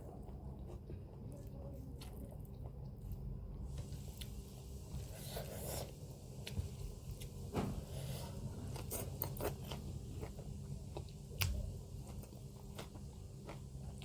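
A person chewing and eating, with scattered wet mouth smacks and a few crunches, over a steady low hum.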